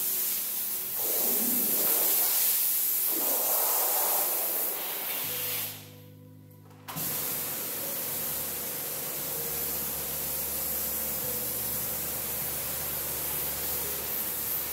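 Pressure washer jet spraying water onto a rug, a steady hiss, with music in the background. The spray cuts out for about a second around six seconds in, then resumes.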